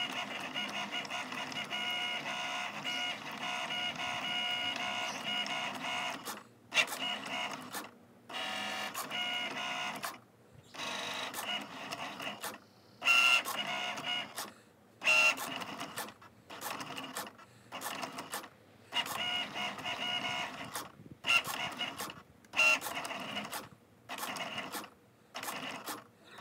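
Cricut cutting machine cutting iron-on vinyl on its mat: the carriage and roller motors run with a whining hum of several steady tones, then from about six seconds in go in short stop-start spurts with brief pauses between, and a few sharp louder clicks.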